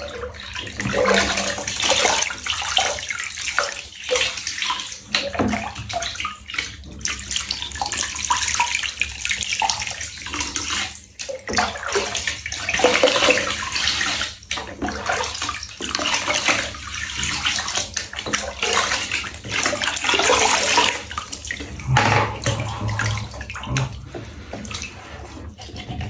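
Water running and splashing unevenly as a cat is washed in a tub.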